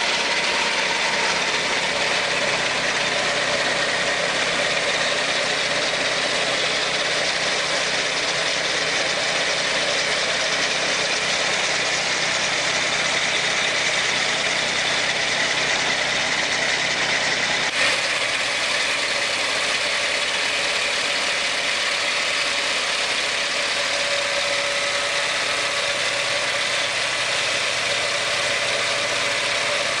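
Swing-blade sawmill's engine running steadily, its circular blade sawing redwood, with a dense rasping saw noise over the engine.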